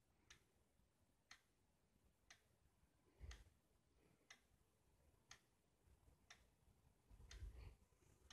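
Faint, even ticking of a clock, one tick a second, with a couple of soft low bumps about three seconds in and near the end.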